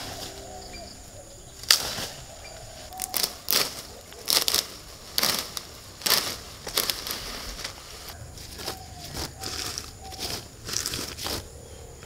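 Leafy branches being pulled down and handled, their leaves rustling with sharp crackles and snaps in irregular bursts.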